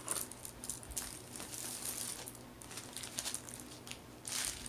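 Plastic packaging crinkling in short, uneven bursts as it is handled: the bags and wrapping of a diamond painting kit being opened and sorted.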